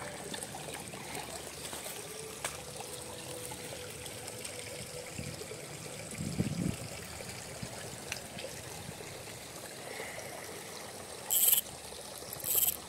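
Water trickling and running steadily. Near the end come two short, sharp bursts of sound.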